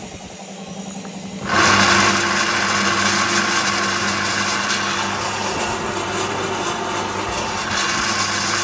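Electric-motor-driven flat-die animal-feed pellet mill switched on about one and a half seconds in, then running steadily and loudly, with no feed in the hopper.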